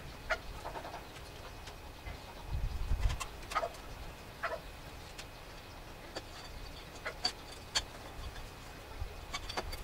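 Faint clicks and light knocks of aluminium engine parts handled by hand as the head gasket and cylinder head of a 139QMB scooter engine are fitted over the cylinder studs, with a dull thump about two and a half seconds in.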